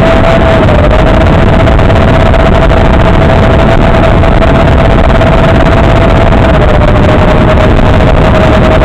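Loud, steady hiss of analog FPV receiver static, cut off sharply above the mid-highs, with a steady whine that dips slightly in pitch about a second in and again near the end.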